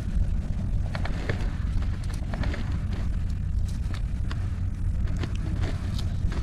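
Steady low wind rumble on the microphone, with scattered light clicks and rustles from gloved hands handling a multi-hook fishing rig.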